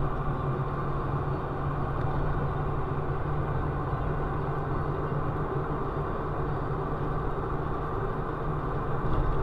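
Steady engine and road noise of a moving car, heard from inside the cabin, with a constant low hum.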